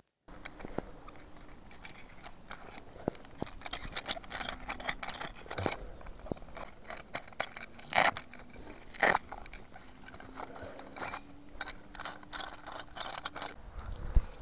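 Hands handling a paper packet and camping gear: close rustling and crinkling with scattered clicks and scrapes, and two louder crackles about eight and nine seconds in.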